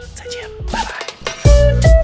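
Background music: a quiet melodic line of held notes, then about one and a half seconds in a loud track with heavy bass and drums kicks in.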